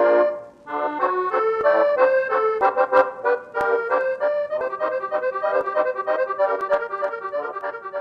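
Instrumental soundtrack music: a melody over sustained chords, with a few sharp ticks of light percussion. It drops away briefly about half a second in, then resumes.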